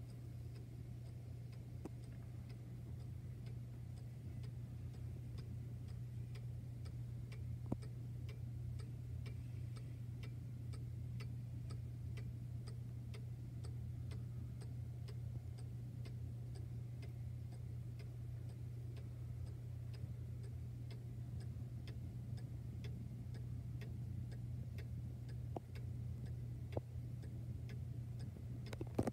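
Walnut-cased German cuckoo clock with a seven-day mechanical movement ticking steadily as its pendulum swings. A steady low hum runs underneath, with a single louder knock once or twice.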